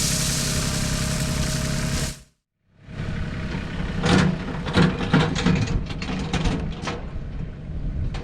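Tractor engine running steadily, cut off briefly about two seconds in, then running again with a string of sharp clanks and knocks over the next few seconds.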